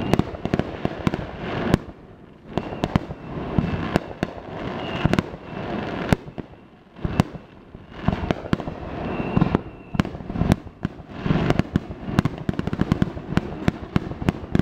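Aerial fireworks exploding: many sharp bangs and crackles in quick succession over a continuous rumble, with brief lulls about two and seven seconds in.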